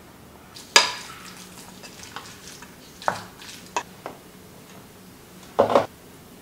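Kitchen utensils knocking against a glass mixing bowl of minced pork: a handful of sharp clinks, the loudest about a second in with a short ring, and a quick double knock near the end.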